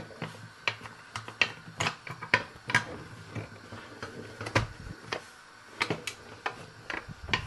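A metal utensil clinking and knocking irregularly against a metal cooking pot, a dozen or so sharp clinks, some ringing briefly.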